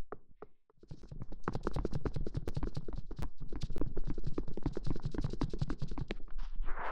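Fast ASMR tapping close to the microphone: a dense run of quick light taps, many a second, starting about a second in after a brief pause.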